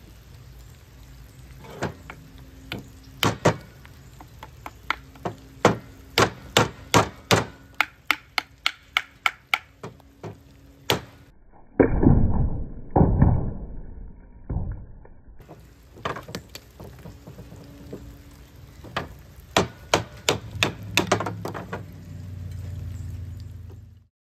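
A wooden baton striking the spine of a stainless Mora Companion knife, splitting fatwood into small batonings: a long series of sharp knocks, coming about one to two a second. A louder, duller run of thuds comes about halfway through before the knocking resumes.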